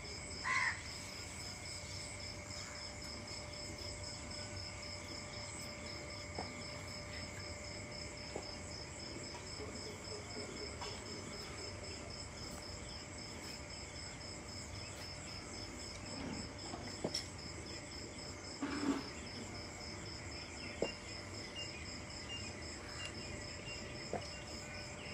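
Insects chirping steadily in a high, evenly pulsing trill, with a few faint brief knocks.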